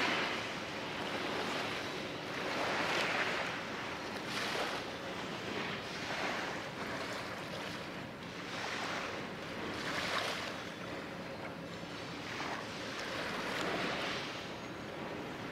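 Small waves washing against the shore: a hiss that swells and fades every one to two seconds.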